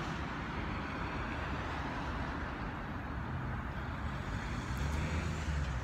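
Steady noise of city street traffic, cars running past in a continuous hum.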